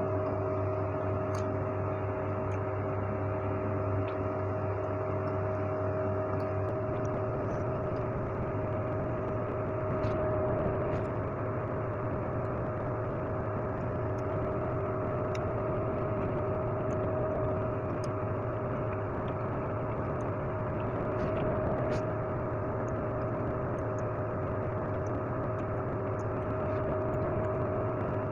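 Steady mechanical hum of a running electric motor, holding several fixed tones, with a slight change in its low tone about six seconds in. A few faint clicks sound over it.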